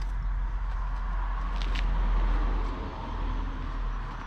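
A passing vehicle, its noise swelling to a peak about two seconds in and then fading, over a steady low rumble.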